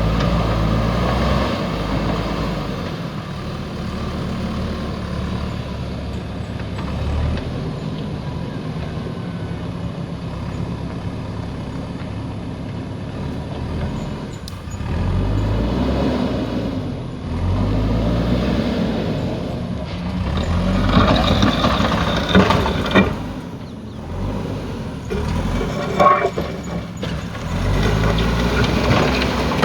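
Diesel engine of a JCB backhoe loader running under load, its pitch rising and falling as it is revved. From about twenty seconds in, metallic clanks and rattles come through over the engine.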